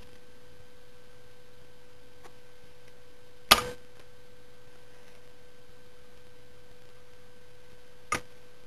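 Steady faint single-pitched hum, with two sharp clicks: one about three and a half seconds in, a smaller one near the end.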